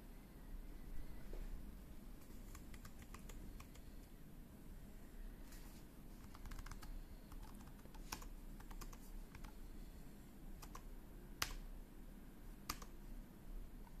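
Faint, scattered single key presses on a laptop's keyboard, irregular clicks with pauses between them, one somewhat sharper than the rest a little past the middle. They are the arrow and menu keys being pressed to step through the firmware setup and boot menu.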